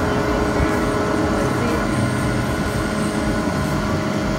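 Steady mechanical rumble of an amusement ride running with its cars carrying riders around.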